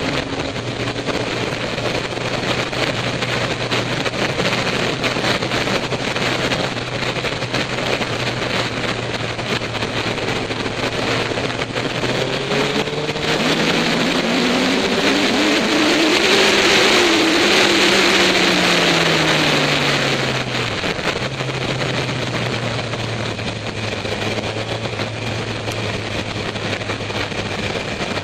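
Motorcycle engine heard from a camera mounted on the bike, with wind rushing over the microphone. It runs steadily, then about twelve seconds in the revs climb, hold high for a few seconds and drop back, and the wind noise grows louder as the bike speeds up.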